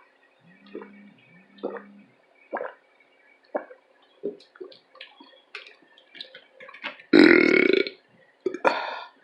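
A woman burping loudly twice, a long burp about seven seconds in and a shorter one a second later, after several seconds of faint mouth clicks and smacks from eating.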